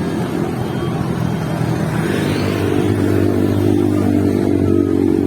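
Motor vehicle engine running, its hum settling to a steady pitch about two and a half seconds in.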